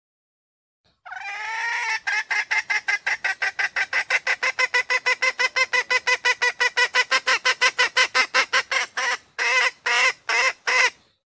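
Female red junglefowl calling: one drawn-out note about a second in, then a fast run of short clucks, about six a second, for some seven seconds, and after a brief pause a few slower clucks. It is the hen's call that draws male junglefowl to come close or crow.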